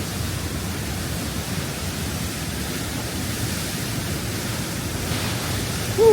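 Steady rushing water of a mountain stream and its waterfalls: an even, unbroken hiss.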